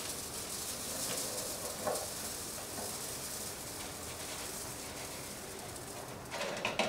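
Coarse-grained soil sample poured from a plastic container into the top sieve of a stack of brass test sieves, the grains making a steady sandy hiss as they run onto the mesh.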